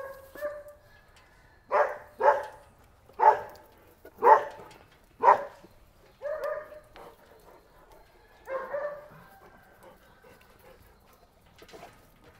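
Dog barking in a kennel: five short, sharp barks about a second apart starting near two seconds in, with drawn-out whining calls at the start, around six seconds and a longer one near nine seconds.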